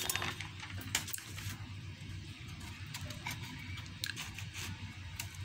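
Sheets of paper being handled and laid down: a few rustles and taps in the first second and a half, then scattered light clicks, over a steady low hum.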